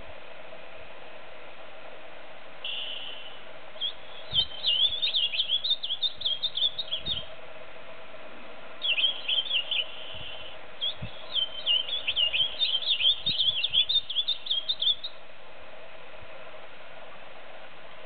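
Ultramarine grosbeak (azulão, Cyanocompsa brissonii) singing its fast, warbling song in three phrases: one about four seconds in, a short one near nine seconds, and a longer one ending near fifteen seconds.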